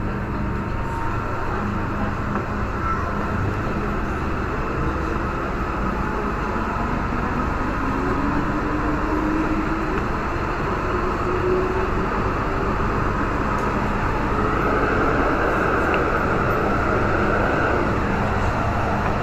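MTR M-train electric multiple unit accelerating away through an underground station. A traction motor whine slowly rises in pitch over the steady rumble of wheels on track, and the sound grows slightly louder as the train gathers speed.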